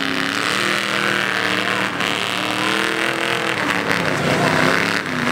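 Truck engine running, its pitch slowly rising and falling as it revs, over a steady hiss of outdoor noise.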